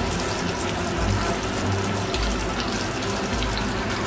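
Dried fish (daing) frying in hot oil in a nonstick pan, a steady sizzling hiss.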